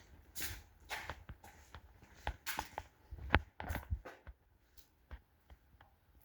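Irregular footsteps and scuffs on a hard floor, closer together at first and thinning out after about four seconds.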